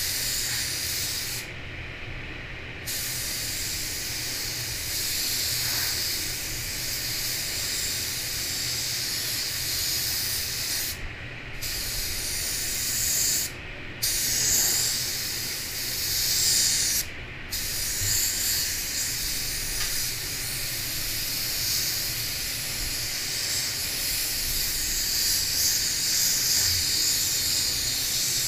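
Gravity-feed spray gun hissing as it sprays white waterborne basecoat, in long passes. The hiss stops briefly about four times, where the trigger is let go.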